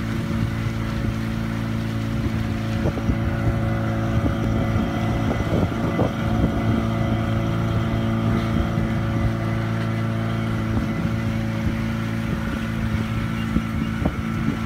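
Motorboat engine running at a steady cruising speed with an even hum, over the rush and splash of water along the hull.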